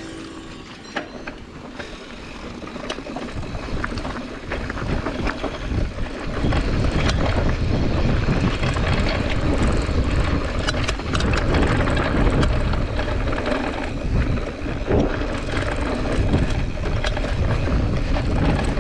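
Wind buffeting the camera's microphone and knobby tyres rumbling over dirt and rock as a mountain bike picks up speed downhill, growing louder over the first several seconds and then holding. Sharp rattles and clicks from the bike hitting rough ground come through throughout.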